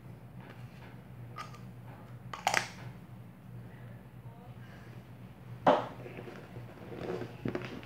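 Small handling sounds of a lipstick tube and items in a bag: a sharp click about two and a half seconds in, a louder short clack a little before six seconds, then light rustling and knocks near the end, over a low steady hum.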